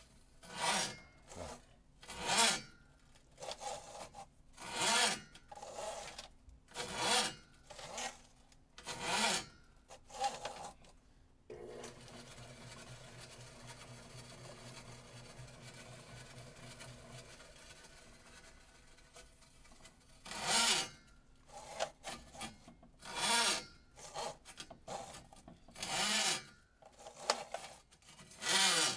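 Power drain snake's steel cable rasping in long strokes, about one every two seconds, as it is pulled back out of the drain's cleanout pipe after clearing the clog. Partway through, the strokes stop and the auger's electric motor runs with a steady hum for several seconds before the rasping strokes start again.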